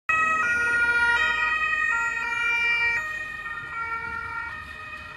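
Carabinieri patrol car siren sounding, its tones switching pitch every half second or so. It starts suddenly and grows quieter from about three seconds in.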